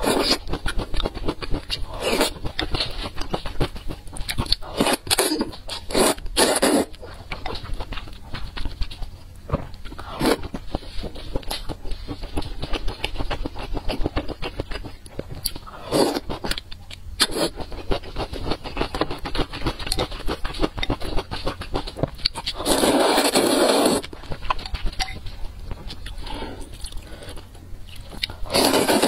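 Close-miked eating of glass-noodle soup: wet chewing and smacking with many short clicks. There is a long, loud slurp of noodles about 23 seconds in, and another slurp near the end.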